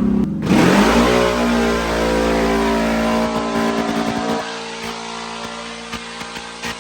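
CFMOTO CFORCE 1000 ATV's V-twin, breathing through a cat-delete header, revving up hard about half a second in and holding high revs on a dyno pass, then easing off a little about four seconds in.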